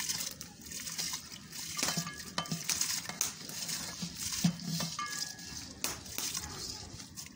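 Rice pouring from a steel colander into a large pot of boiling water, grains rustling and pattering in with a steady hiss and scattered light clicks of metal.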